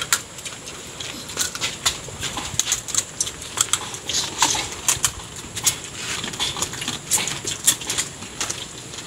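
Irregular sharp clicks and cracks of cooked crab shells being broken apart and picked over by hand, several a second, as people eat.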